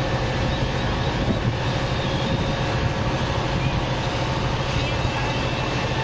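Fire engine's diesel engine running steadily, a constant low drone.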